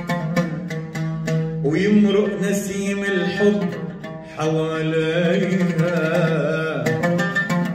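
Oud picked in an Arabic song, with a man singing two long, wavering phrases over it and a brief pause between them.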